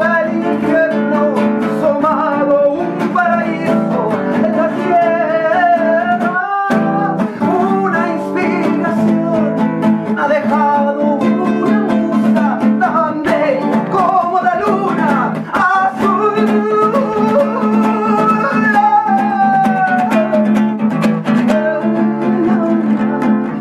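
Music: acoustic guitars strumming and plucking under a wavering melodic lead line.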